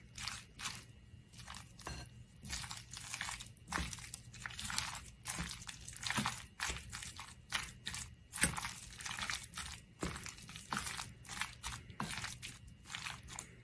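Steamed onions being mixed with flour and apple cider vinegar in a bowl, stirred and mashed together in short, irregular strokes as the flour binds up the onion water.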